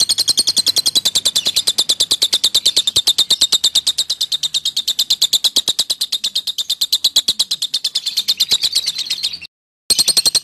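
Lovebird 'ngekek': one long, fast chattering trill of even, high-pitched chirps at about ten a second, broken by a short silence near the end before it resumes.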